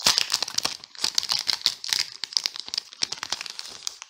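Thin clear plastic packaging crinkling and crackling in rapid bursts as it is pulled open by hand to get at a sheet of vinyl stickers, easing off near the end.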